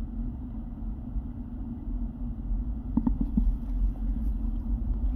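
Steady low background rumble with a faint constant hum, and a few faint brief sounds about three seconds in.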